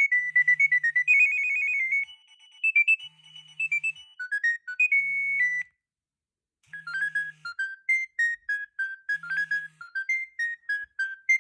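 Nokia 6610 mobile phone playing a ringtone melody through its small speaker: quick runs of high electronic notes. The tune stops for about a second midway, then a melody starts again.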